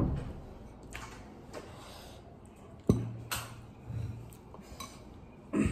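Sounds of eating by hand: chewing and the fingers working rice on a plate, with one sharp knock about three seconds in.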